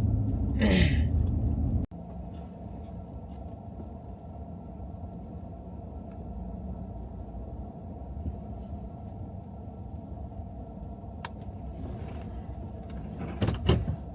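Steady low road and engine noise inside a moving car, with a few sharp clicks near the end.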